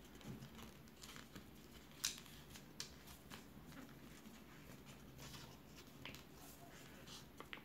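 Faint rustling and crinkling of a paper sheet being handled, rolled over a plastic rod and pressed down, with a few short sharp crackles, the loudest about two seconds in.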